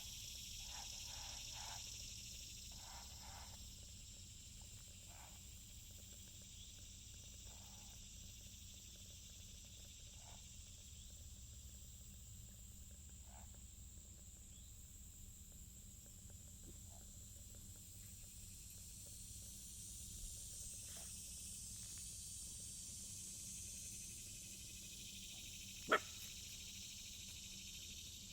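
Faint outdoor ambience with a steady high insect trill throughout. Over it come short, scattered animal calls, several in quick succession at the start and sparser through the first half. About 26 seconds in there is a single sharp click, the loudest sound.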